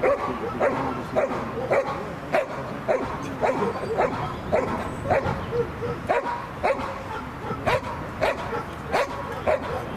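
A young Belgian Malinois barking over and over while lying down, about two short, sharp barks a second.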